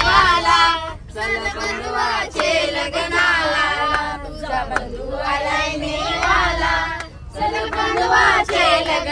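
A group of voices singing a song together, casual and unaccompanied, as in a sung antakshari game, over a low steady rumble.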